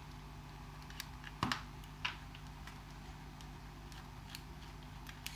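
A few scattered light clicks and taps of small plastic and metal RC car parts being handled and set down, over a faint steady hum.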